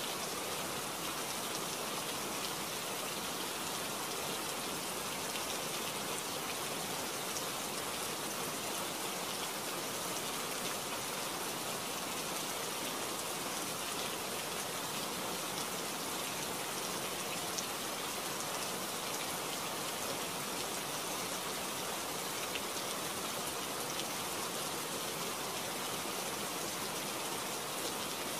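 Rain falling steadily, an even hiss with no breaks.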